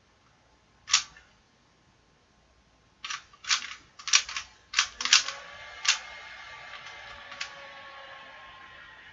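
Plastic puzzle cube being turned by hand: one sharp click about a second in, then a quick run of clacks as the layers snap round from about three seconds in, and one more click later.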